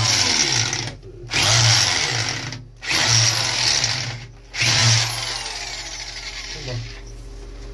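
Yellow cordless drill run in four short bursts against a metal wall-mounting bracket, with brief stops between; the last burst trails off after about five seconds.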